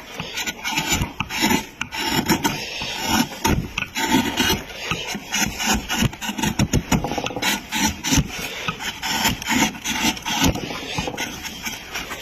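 A hand tool scraping or rasping across wood in quick, uneven repeated strokes.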